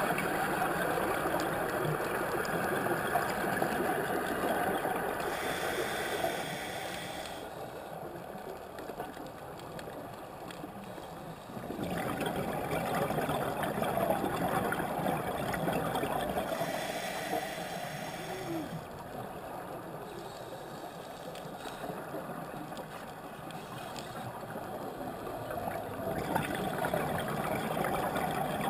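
Scuba breathing heard underwater through a regulator: three spells of exhaled air bubbling and gurgling, each a few seconds long, the first two followed by a short hiss of inhalation and a quieter pause.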